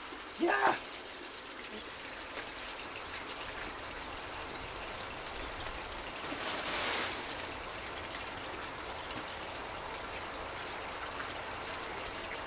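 Steady outdoor background hiss, broken about half a second in by one short, loud, pitched cry that rises slightly, and around seven seconds by a brief rustling noise.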